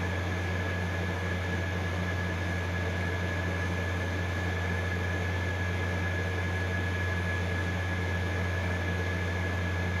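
Steady mechanical hum with a hiss over it and a thin high whine held throughout; no change or distinct knocks.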